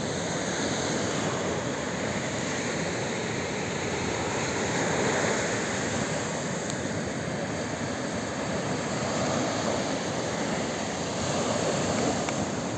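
Sea surf breaking on the beach, with wind on the microphone: a steady rush of noise that swells about five seconds in and again near the end.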